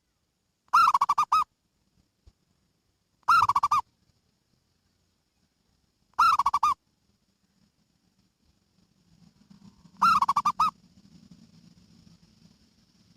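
Zebra dove (perkutut) cooing: four short, stuttering coos of about half a second each, a few seconds apart. A faint low hum comes in over the last few seconds.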